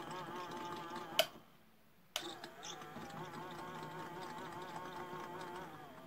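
Toy Miele washing machine's small electric motor whirring as it turns the drum, the pitch wavering slightly. About a second in it stops with a sharp click, then after a second's pause starts again with another click, and it dies away near the end.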